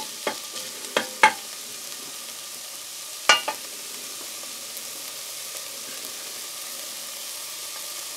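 Diced onions sizzling gently in butter on low heat in a stainless steel saucepan as they soften and turn translucent, a steady soft hiss. A few knocks of a wooden spoon against the pan in the first seconds, the loudest about three seconds in.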